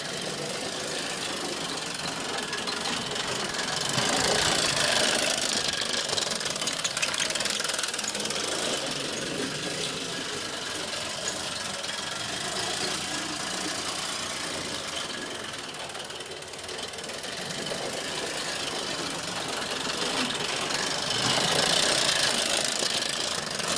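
Live-steam Mamod/Bowman hybrid model locomotive chassis running fast with a rapid chuff and rattle of wheels on the rails. It gets louder twice, about four seconds in and near the end as it approaches. It is running fast because it is controlled by a globe valve instead of a proper regulator.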